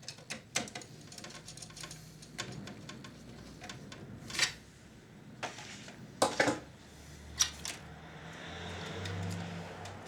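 Irregular clicks, taps and knocks of small plastic and metal parts and tools being handled as a Panasonic NV-G7 VCR is put back together, a few sharper knocks standing out about four and six seconds in, over a faint low hum.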